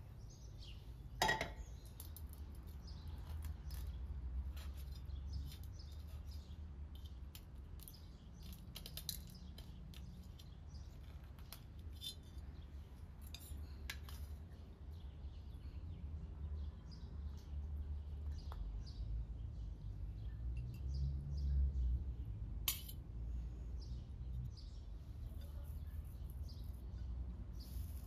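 Metal serving spatula and fork clinking and scraping on a metal platter and china plates as pasta is dished out, with a sharp clink about a second in. Birds chirp faintly over a low steady rumble.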